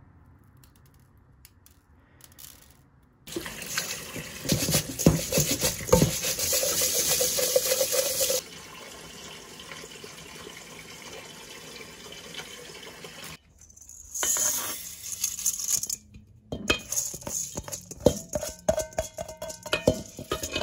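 Water running and splashing in a sink while rice is rinsed, starting about three seconds in. Near the end, soaked rice is scraped by hand out of a stainless-steel bowl into a black rice pot, with a quick patter and scrape of grains on metal.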